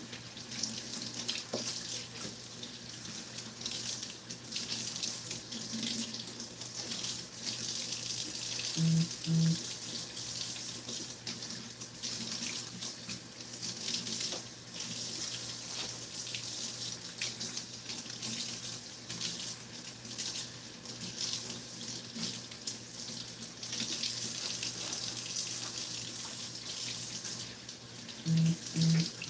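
Kitchen faucet running steadily into a sink, its stream splashing over mustard green leaves being rinsed under it. Twice, about nine seconds in and again near the end, a pair of short low tones sounds over the water.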